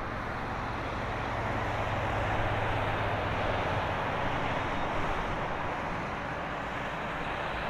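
Airbus A320neo's turbofan engines running at taxi idle as the airliner taxis after landing: steady jet noise, with a low hum that fades about four seconds in.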